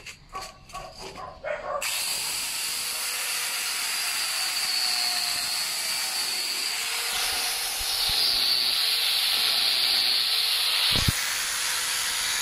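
A 4-inch (100 mm) angle grinder fitted with a chainsaw bar and chain, started about two seconds in and running with a steady high whine and chain noise as it cuts into a young tree trunk. The whine rises in pitch partway through, and a single knock comes near the end.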